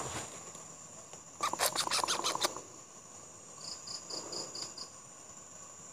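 A steady high chorus of night insects, with a burst of rustling and crackling in dry leaves about one and a half seconds in, and a quick run of six short high chirps a little past the middle.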